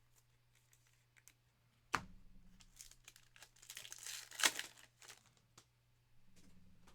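A trading card pack wrapper being torn open and crinkled by hand: a sharp snap about two seconds in, then crackling and tearing, loudest a little after halfway.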